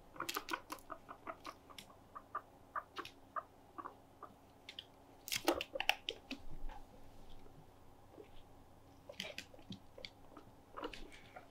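Guinea pigs nibbling and pawing at a plastic step stool: irregular small clicks and crunches, loudest about halfway through.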